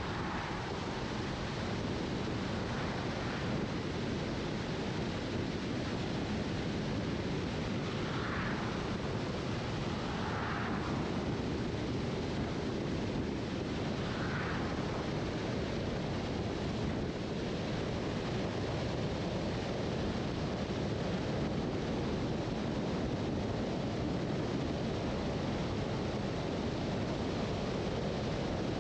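Steady tyre and wind noise of a car driving at road speed, with several oncoming cars swishing past briefly.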